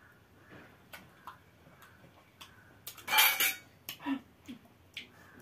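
Eating sounds of people chewing and sucking raw lemon slices at a table, with scattered small clicks and smacks of mouths and plates. A loud hiss-like rush lasts about half a second, about three seconds in.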